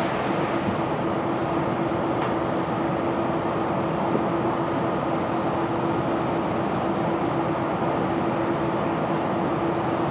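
Steady din of bulk-cargo unloading machinery working a barge, an even mechanical noise with a constant hum that does not change.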